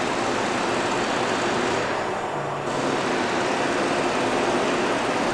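A lathe running steadily with no cut being taken: an even mechanical motor and gearbox noise with a faint low hum.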